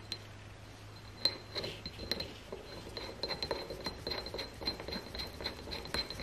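Faint, irregular clicking and scraping of a headless steel 3/8-16 bolt being turned by hand into the threaded end of a drill chuck's Morse taper arbor, starting about a second in.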